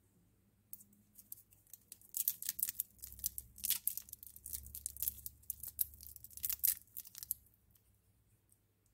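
Foil lollipop wrapper crinkling and tearing as fingers twist it loose at the stick and peel it off the candy: a dense run of sharp crackles that starts about a second in and stops near the end.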